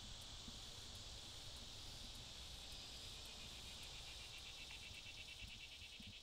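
Faint, steady chirring of insects in a summer field, with a quicker pulsing chirp coming in about two-thirds of the way through.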